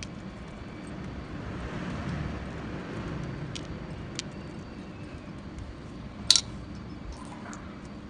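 Knife blade scoring the soft flesh of a peeled banana, a faint scraping, over a low steady background rumble. About six seconds in, one sharp click, the loudest sound, as metal tackle or the knife is handled.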